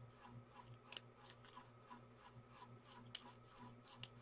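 Faint snips of small scissors cutting apart a strip of symbol stickers, with a sharp snip about a second in and another about three seconds in. A soft regular ticking runs underneath, about three ticks a second.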